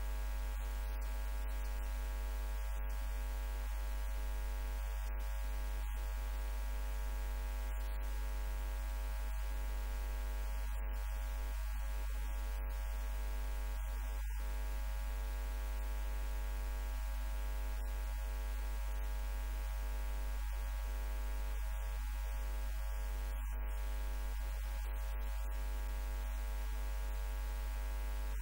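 Steady electrical mains hum: a strong low drone with a buzzy stack of higher tones over faint hiss, unchanging throughout.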